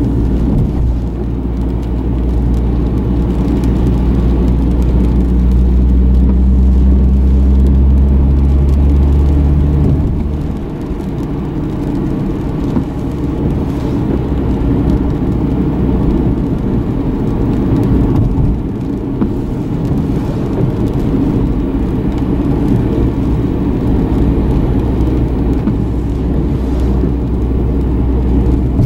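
Inside the cabin of a V36 Nissan Skyline 250GT on the move: the 2.5-litre VQ25 V6 gives a strong, steady low hum over tyre and road noise for about the first ten seconds, then the hum drops away and steady road noise carries on.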